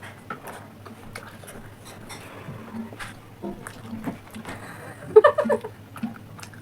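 Light, scattered clicks and taps of eating at a table, over a low steady hum. A short burst of voice comes about five seconds in.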